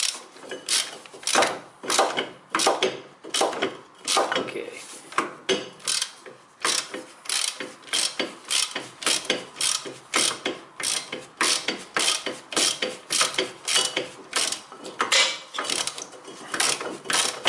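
Ratchet wrench loosening a front brake caliper bracket bolt: repeated back-and-forth strokes, the pawl clicking in quick runs about one to two times a second.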